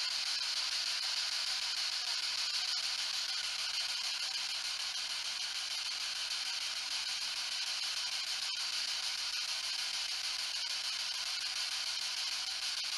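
Ghost box radio sweeping through stations, giving a steady hiss of radio static.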